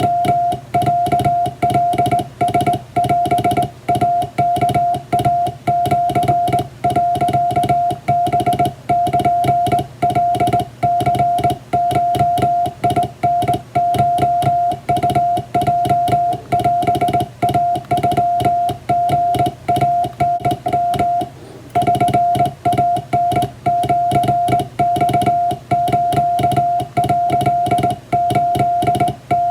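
Morse code tone of about 700 Hz, hand-keyed on a straight telegraph key as Japanese kana (wabun) telegram text. The dots and dashes run at an even pace, with a brief pause about two-thirds of the way through.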